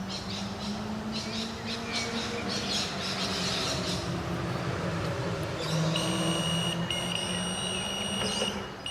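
Birds chirping, then about six seconds in an electronic carp bite alarm sounds one high steady tone for about three seconds, broken once briefly. The tone is line movement registering at the rod, which the angler reckons is a cautious or small fish.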